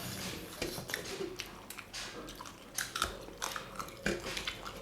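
Close-up eating sounds: people chewing and biting mouthfuls of meat and biryani, with small irregular clicks and wet smacks.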